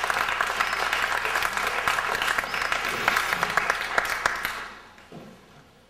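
Theatre audience applauding, the clapping dying away about four and a half seconds in.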